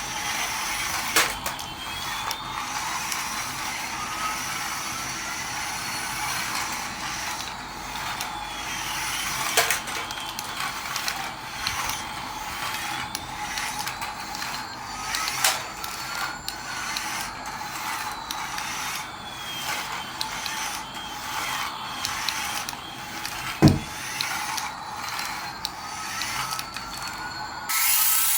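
A small toy motor driving plastic gears, whirring with a ratcheting clatter of clicks; a faint whine rises and falls in slow swells. A few sharper clicks, and a low knock near the end.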